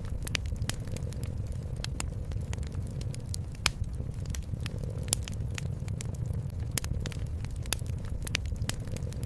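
Wood fire crackling in a fireplace, with irregular snaps and pops, a few sharper than the rest, over a steady low rumble that is the cat's quiet purring.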